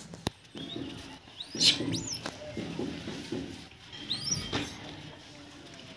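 Short, high-pitched squeaky chirps from a small animal or bird, repeated in a few clusters, with a sharp knock just after the start.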